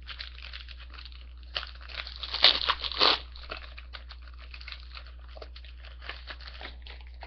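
Crinkling and tearing of a foil trading-card pack wrapper being opened, loudest in a cluster of crackles about two to three seconds in, then lighter rustling as the wrapper and cards are handled.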